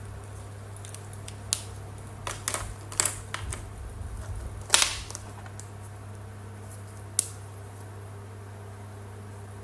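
Plastic acrylic paint markers clicking and knocking against each other and the table as one is put down and another picked from the row, a scatter of sharp clicks with the loudest about five seconds in and one more near seven seconds. A steady low hum runs underneath.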